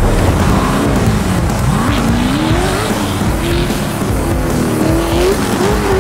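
Off-road race buggy's engine revving hard as the buggy slides through dirt, its pitch climbing and dropping several times and holding high near the end.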